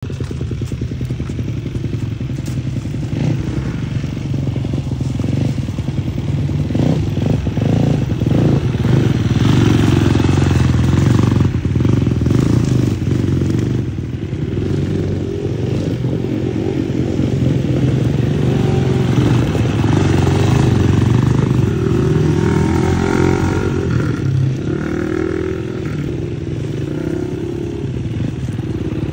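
Two dirt bike engines running at low speed around a horse, rising and falling in pitch as the bikes move, and louder through the middle.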